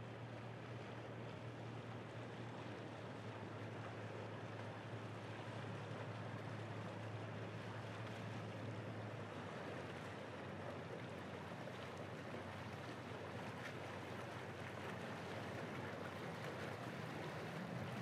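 Balboa Island car ferry's engine running as it approaches the landing: a low steady hum over a broad wash of noise, growing louder near the end.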